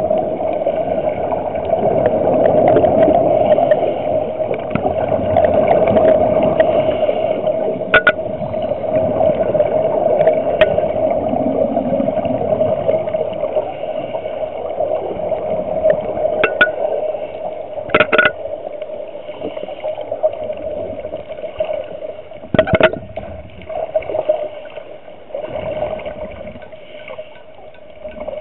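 Underwater sound heard through a compact camera's waterproof housing: a steady watery rush with a constant hum, and a few sharp knocks, the loudest about 18 and 23 seconds in. The rush fades somewhat in the second half.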